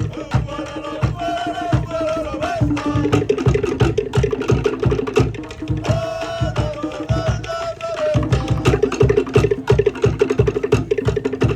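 Cook Islands drum ensemble playing a fast, even rhythm: wooden slit drums (pate) clattering over deep drum strokes. Voices call out in a chant twice over the drumming.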